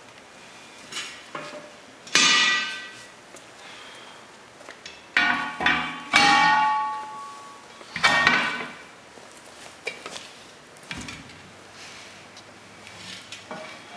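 Steel tire demount bar clanging against steel truck wheel rims as the tire beads are pried off. There are several loud, ringing metal clangs: one about two seconds in, a cluster between about five and seven seconds, and another at about eight seconds, with lighter knocks in between.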